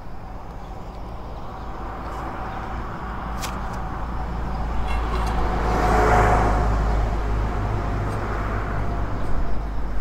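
A vehicle passing by: its road noise swells to a peak about six seconds in, then fades away.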